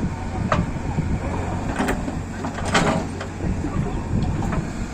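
Diesel engine of a JCB 3DX backhoe loader running steadily, with a few short sharp knocks from the working machine, about half a second, two seconds and three seconds in.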